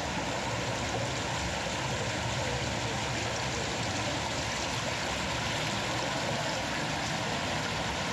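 Steady rushing of running water, an even noise that holds at one level throughout.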